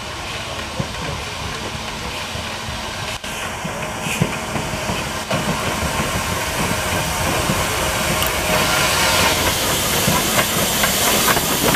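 Mallet articulated steam tank locomotive rolling slowly past, steam hissing from its cylinders, getting steadily louder as it draws near.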